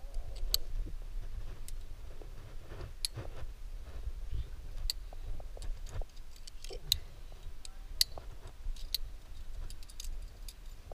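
Climbing gear clinking as a lead climber moves up the rock: irregular sharp metallic clicks of carabiners and quickdraws knocking together, over a steady low rumble.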